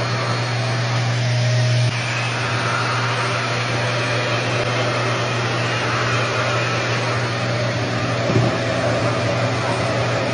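RevAir reverse blow dryer running steadily: its suction motor gives a constant low hum under a rushing of air as it pulls curly hair into its tube and dries it straight. The level drops slightly about two seconds in.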